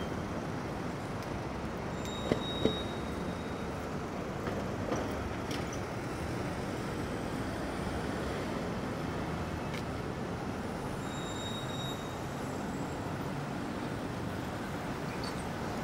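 Steady city street traffic noise, with two short sharp knocks about two and a half seconds in.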